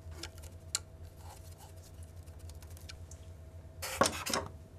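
Small clicks and taps of tools and fingers handling the motor's brush holder and screws, over a steady low hum, with a short louder rustle about four seconds in.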